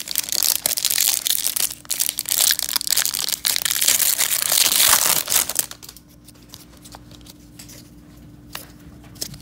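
Hockey card pack wrapper being torn open and crinkled by hand, a dense crackling rustle for about six seconds that then drops to quiet handling.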